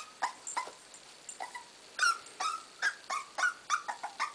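Corgi puppy whining in a string of short, high-pitched whimpers that come faster in the second half, as it hesitates to step down the stairs.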